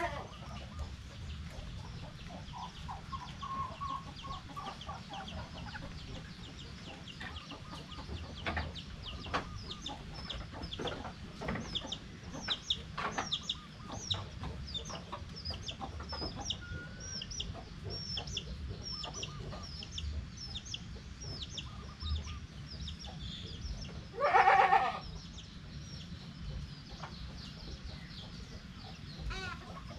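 Free-range village chickens clucking, with many high short chirps throughout and scattered knocks. A little over three-quarters of the way through comes one loud, short call, the loudest sound here.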